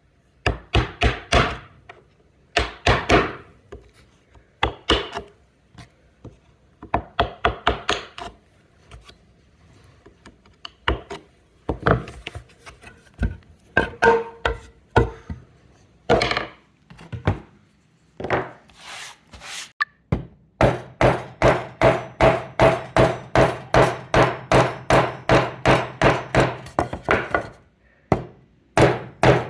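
A hammer striking a chisel, chopping waste wood out of a halving joint: short bursts of quick blows in the first part, then a steady run of about three strikes a second that ring with a metallic note.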